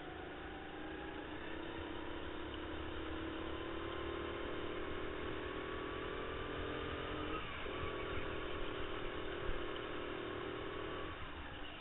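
Racing kart's motor heard from onboard, its pitch climbing steadily under throttle. It drops off briefly a little past halfway as the driver lifts for a corner, climbs again, then falls away near the end.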